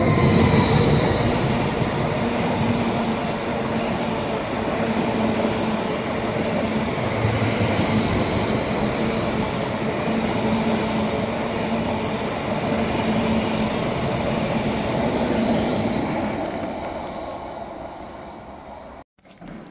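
Greater Anglia electric multiple unit passing under the footbridge: a loud rushing rumble of wheels on rail that peaks as the train arrives, holds steady while the carriages go by, then fades away and cuts off abruptly near the end.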